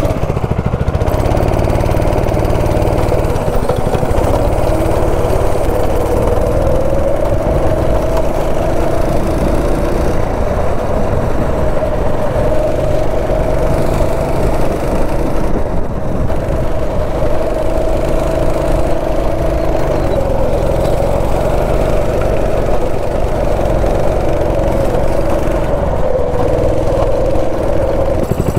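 Go-kart's small petrol engine running while the kart is driven round the track, loud and close, its pitch rising and dipping a few times as the throttle changes.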